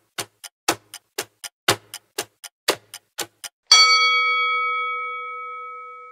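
Clock-style countdown timer ticking about four times a second, then a single bell chime about three and a half seconds in that rings out and slowly fades, marking time up as the answer is revealed.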